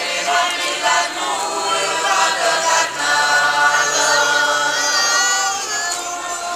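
Many voices singing together in a large crowd, a continuous group song with several voices overlapping.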